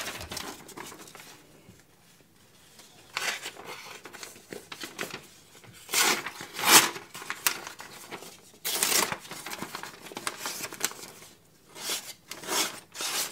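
A knife edge being deliberately dulled before sharpening: a series of uneven scraping strokes, each under a second, with short pauses between.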